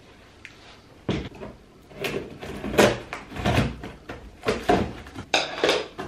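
A cardboard printer box being handled and opened: a knock about a second in as it is set down, then a run of cardboard scrapes, rustles and knocks as the flaps are pulled open.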